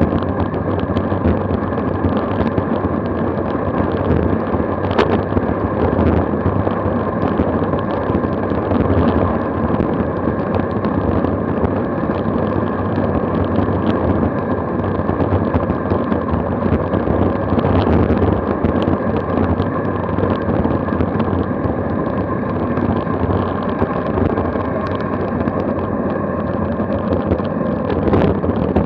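Steady wind rush on the microphone mixed with tyre noise on asphalt as a road bike descends at over 30 mph. A couple of sharp clicks cut through, one about five seconds in and more near the end.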